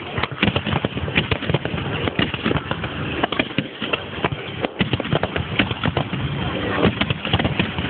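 Aerial fireworks going off in rapid succession: a dense, irregular crackle of sharp bangs and pops, several each second.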